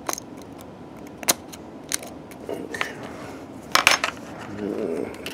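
Sharp clicks and snaps of a hobby knife breaking resin 3D-print supports away from a printed servo bracket, with a few louder clicks close together about four seconds in and a soft rustle of the part being handled near the end.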